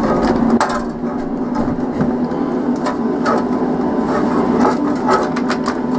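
Workshop dust extractor running with a steady motor hum, with scattered light knocks and scrapes over it.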